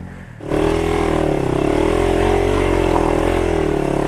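Motorcycle engine revved hard, starting suddenly about half a second in and held at high revs with a slight waver, while the bike is being pushed through a hard stretch of trail.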